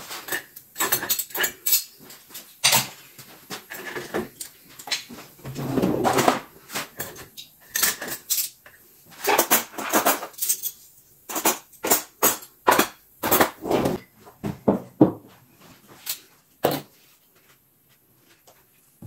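Dishes, glasses and cutlery clinking and clattering as a dishwasher is unloaded and the things are put away in cupboards, with knocks of cupboard doors and drawers. It comes in quick irregular clusters that thin out over the last few seconds.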